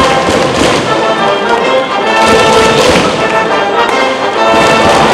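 High school brass band with drums playing a baseball cheering tune in the stands. It plays sustained, held notes over a steady drumbeat.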